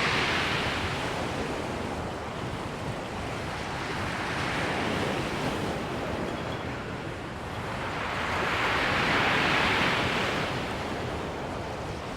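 Sea waves breaking and washing on a shingle beach, with some wind on the microphone. The surf swells about four seconds in and again, louder, around nine seconds.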